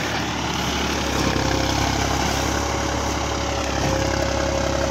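John Deere 5405 tractor's diesel engine running loud and steady close by, with a thin steady whine over the engine noise that rises slightly near the end.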